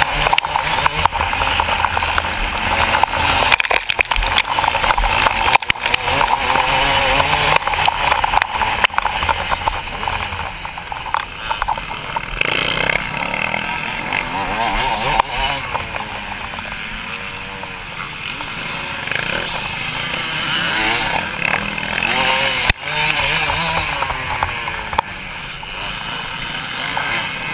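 Motocross bike engine running hard under throttle, its pitch rising and falling as the rider works the throttle and gears, with a dense rush of noise over it. It drops quieter through the middle stretch, then picks up again near the end.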